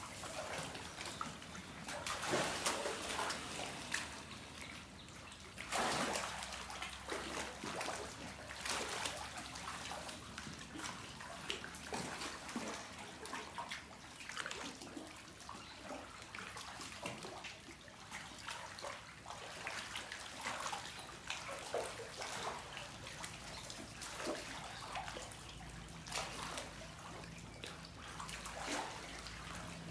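Water splashing and sloshing as a crowd of crocodiles swim and jostle in a farm pool, with irregular splashes throughout and louder ones about two and six seconds in.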